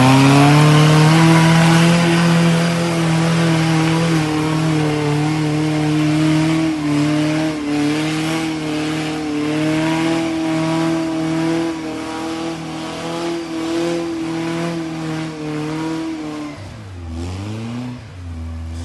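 Willys CJ3A Jeep's engine revving up and held at high revs under load, with small wavers in pitch. About seventeen seconds in, the revs dip sharply and climb back, then settle lower.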